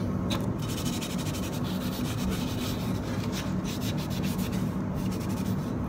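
Green Scotch-Brite scouring pad rubbed rapidly back and forth by hand over the finned black housing of an LED spotlight, scuffing off the original finish to key it for paint. A steady low hum runs underneath.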